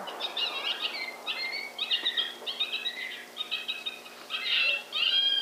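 High-pitched yipping and squealing animal calls in quick repeated bursts, several overlapping, some sliding in pitch.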